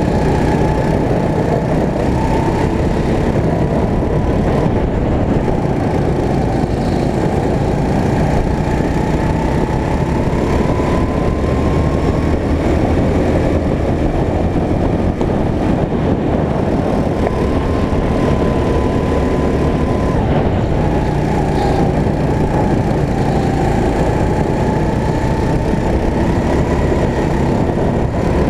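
Go-kart engine running hard, heard from onboard the kart: its pitch climbs slowly as it accelerates and drops back as it slows for corners, a few times over.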